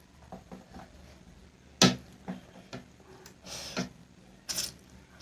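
Eating sounds: a few sharp clicks of utensils against dishes, the loudest about two seconds in, and a short slurp a little after the middle.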